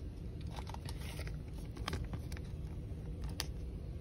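Thin plastic card sleeve crinkling and glossy trading cards clicking as they are handled, in a few short crackles and ticks, over a steady low background hum.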